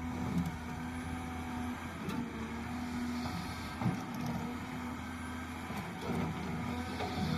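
A heavy construction machine's engine running steadily, with a few short knocks from the work.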